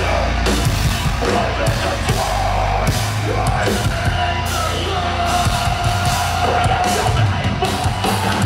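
Heavy metal music: a band playing loud with guitars, a heavy bass and a drum kit.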